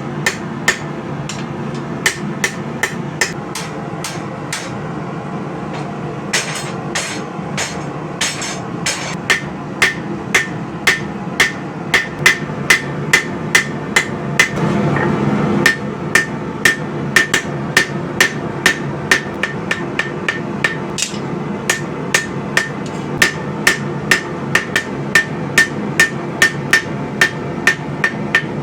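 Hammer blows on hot spring steel at the anvil, rough-forging a blade. Each strike rings briefly, over a steady background rush. The blows are spaced out at first, then settle into about two a second. Partway through, a louder rush lasts for about a second.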